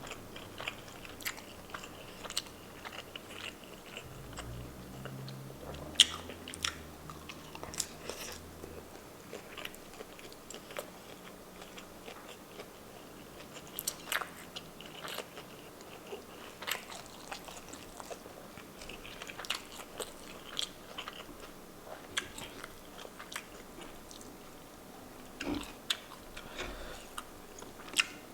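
A person chewing and biting food close to the microphone, with many scattered mouth clicks; the sharpest click comes about six seconds in.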